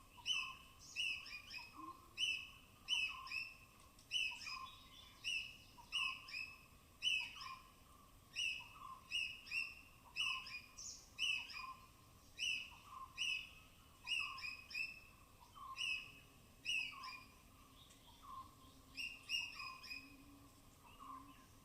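Squirrel giving a steady run of sharp, high-pitched chirping calls, about three every two seconds, with a short lull about three-quarters of the way through: a repetitive alarm chatter.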